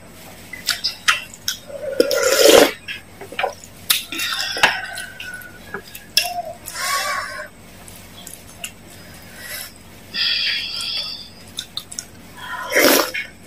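Close-miked eating sounds: wet chewing and slurping of saucy instant noodles with fried egg, with clicks of a spoon and chopsticks against a metal tray. The loudest slurps come about two seconds in and again near the end.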